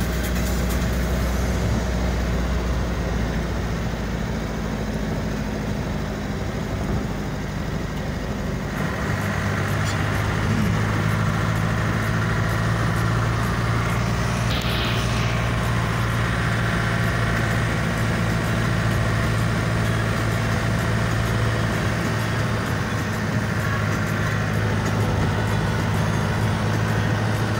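Vehicle engine and road noise heard from inside the cabin while driving. The engine note shifts to a new steady pitch about nine seconds in.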